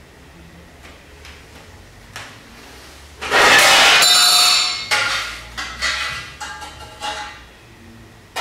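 Stainless steel trays and bowls clattering and ringing: a loud scrape and ring of a metal tray about three seconds in, then a run of clinks and rings as metal dishes are handled and set on a stack, with one more strike at the end.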